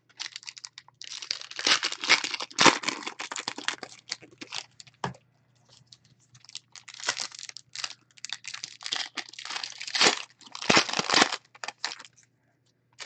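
Foil wrappers of football trading card packs crinkling and tearing as the packs are ripped open and handled, in bursts, with a few sharp clicks among them.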